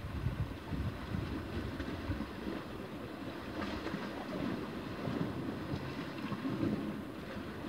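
Wind blowing across the microphone in uneven gusts, over the sea washing against the rocks of the shore.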